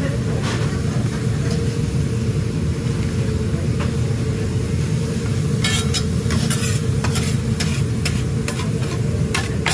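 Food sizzling on a flat-top griddle over a steady low rumble. Metal spatulas click and scrape against the griddle in a quick run of sharp strikes through the second half, as the cheese and vegetables are chopped.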